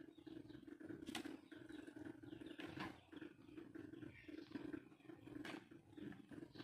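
Faint steady rumble of a stove burner under a wok of fish broth heating toward the boil, with a few soft clicks.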